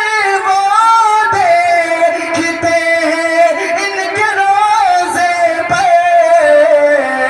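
A man singing a manqabat, an Urdu devotional song, into a microphone. He draws out one long, wavering line whose pitch slowly falls, with no clear words.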